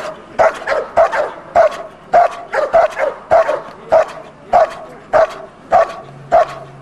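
Belgian Malinois barking steadily at a decoy who stands still, guarding him in protection work. The barks are short and sharp, about two a second.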